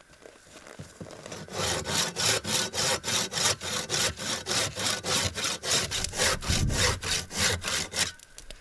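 Hand saw cutting through wood in quick, even strokes, about four a second. The sawing starts about a second and a half in and stops shortly before the end.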